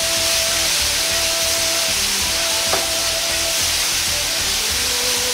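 Chopped beef belly frying in a dry wok in its own rendered fat: a steady sizzling hiss, with one light click about halfway through.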